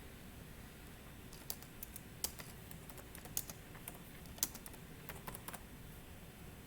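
Faint typing on a computer keyboard: irregular key clicks begin about a second in and stop about a second before the end, over a low hiss.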